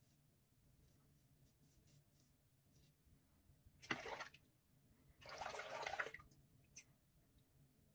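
Faint short scrapes of a Rockwell 6C safety razor on stubble, then two short gushes of running tap water, the second about a second long, as the razor is rinsed.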